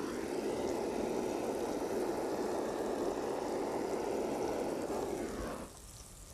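Handheld gas torch burning with a steady rushing flame while caramelizing sugar on sliced apples; the flame is shut off near the end.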